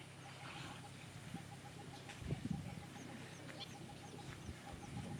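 Birds chirping in the wild, with short high calls and a rapid even series of short piping notes. A low rumble swells about two seconds in and again near the end.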